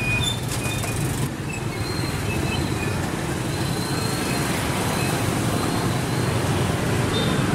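Steady street traffic, mostly motorbikes riding past close by, as a continuous low rumble with a few faint short high tones over it.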